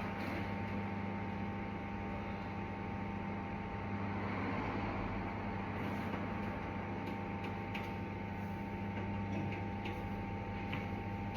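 Microwave oven running on high power: a steady electrical hum with a faint higher whine, and a few light clicks in the second half.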